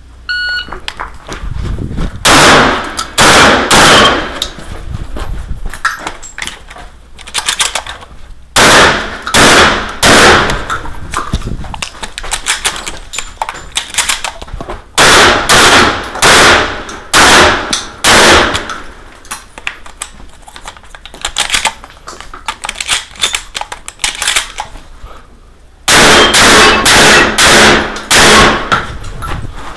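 A shot-timer beep just after the start, then loud, quick strings of 12-gauge semi-automatic shotgun fire from a Stoeger M3K: groups of three to six shots in fast succession, separated by pauses of a few seconds.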